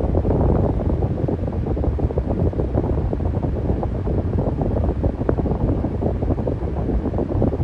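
Fan running steadily: a low, uneven rush of moving air.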